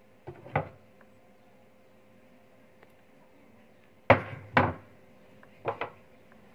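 Short knocks and clacks from parts being handled on a workbench, in three quick pairs, the loudest about four seconds in.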